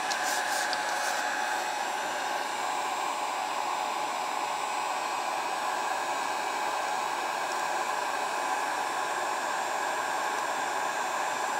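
Electric heat gun blowing hot air steadily onto softening polyethylene plastic, a constant rushing hiss with a faint steady whine in it.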